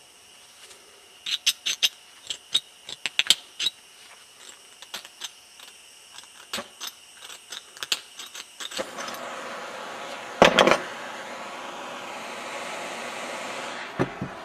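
Sharp metallic clicks and clatter of small tools being handled, then about nine seconds in a small propane torch starts hissing, with a loud pop about a second and a half later as it lights, and the flame keeps up a steady hiss.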